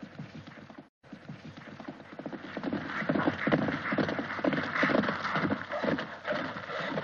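Several horses galloping, a rapid clatter of hoofbeats that grows louder from about two seconds in as the riders come closer. There is a short break in the sound about a second in.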